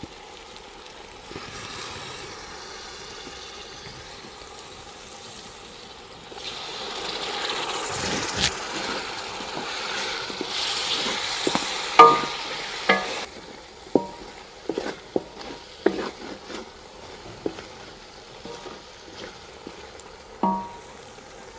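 Masala frying in a large metal pot with a little water just added, sizzling and hissing, growing louder about six seconds in and easing off after about thirteen seconds. From about halfway through, a wooden spoon stirs and scrapes the pot, knocking against its sides in a run of sharp knocks, a few with a short metallic ring.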